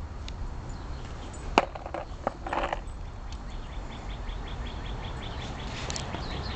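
Skateboard rolling on a concrete sidewalk with a low rumble, a sharp clack about a second and a half in and a few knocks just after. In the second half a faint high ticking repeats about three or four times a second.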